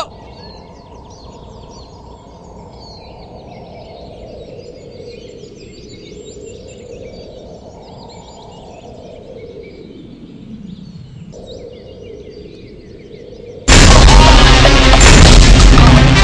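Birds chirping in forest background ambience over a low tone that slowly wavers and dips. About thirteen seconds in, loud music cuts in suddenly.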